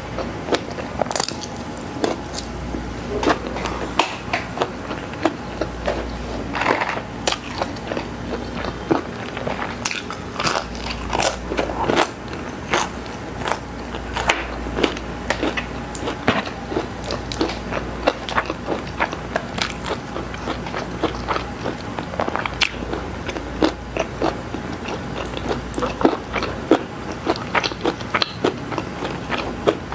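Close-miked eating of crunchy fried fast food: repeated crisp bites and crunches with chewing, many short crackly crunches in quick irregular succession.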